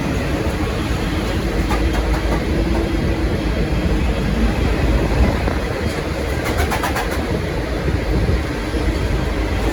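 V/Line passenger train hauled by an N-class diesel locomotive rolling along the track: a steady rumble with wheels clicking over rail joints, once about 2 s in and in a quick run near 7 s.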